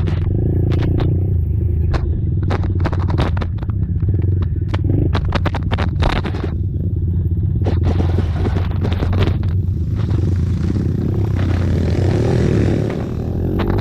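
Racing ATV engines running steadily, with many short crackles and knocks over the engine note.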